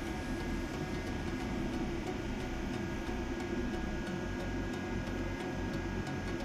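Steady mechanical hum and hiss of pump-room machinery, with a faint regular ticking.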